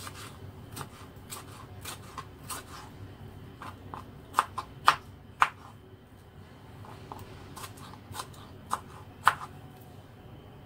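Kitchen knife cutting a tomato into chunks on a plastic cutting board: a run of irregular sharp taps as the blade meets the board, loudest in a cluster around the middle and once more near the end.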